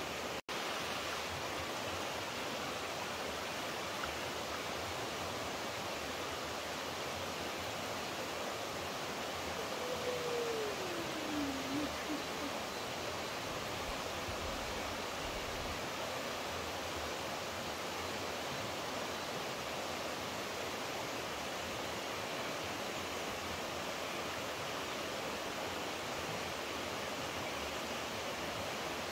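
Steady rushing of flowing water, a stream or waterfall, as an even hiss. About ten seconds in, a short falling tone glides down once.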